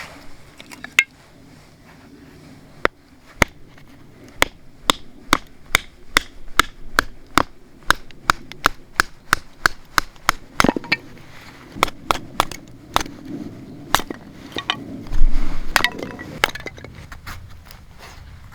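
A rapid series of sharp knocks or cracks, roughly two to three a second, with a louder dull thump about fifteen seconds in.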